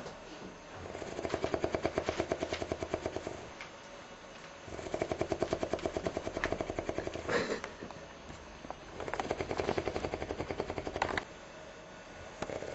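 A person snoring: three long, rattling snores about four seconds apart, each a fast even flutter lasting a couple of seconds.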